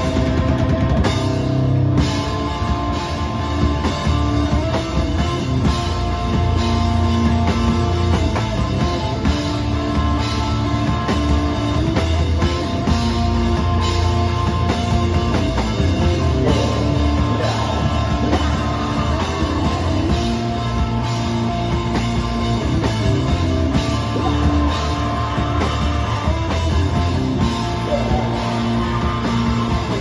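Rock band playing live: electric guitar and bass guitar over a drum kit, loud and steady.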